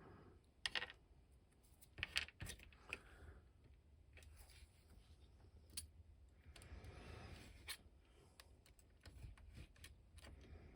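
Faint scattered clicks and light knocks of small plastic action-figure parts being handled and taken apart, with a brief soft scraping about two-thirds of the way through.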